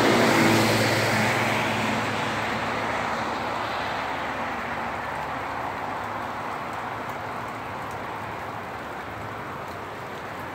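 A car passing on a wet road. Its tyre hiss and engine are loudest in the first second or two, then fade away over several seconds into a steady hiss of rain.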